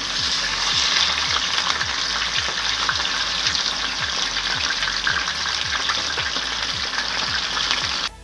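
Mackerel pieces sizzling and crackling in hot vegetable oil, moved and turned with a slotted spatula. The frying runs steadily and cuts off suddenly at the very end.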